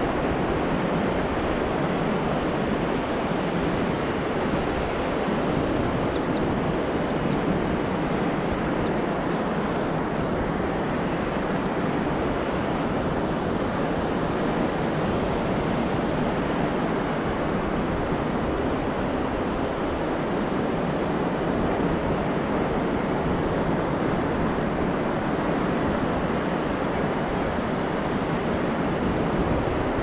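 Surf breaking and washing on a sandy beach in a steady, even rush, with wind rumbling on the microphone.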